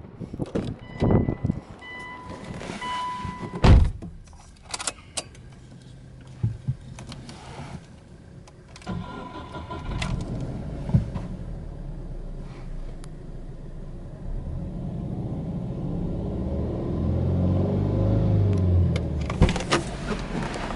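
Getting into a Subaru Legacy Touring Wagon 2.0GT: door clicks and a repeated electronic warning chime, then a heavy thump a little before four seconds in. Scattered clicks follow, and from about ten seconds in a low steady hum sets in and grows louder near the end.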